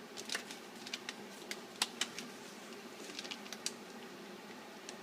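Scattered light clicks and taps as the iPad mini box and its accessories are handled, with a few quick ones close together about three and a half seconds in.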